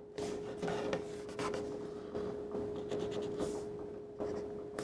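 Felt-tip furniture touch-up marker drawn across a wooden tabletop in a run of short strokes, roughly two a second, to colour in a discoloured spot. A steady background hum runs underneath.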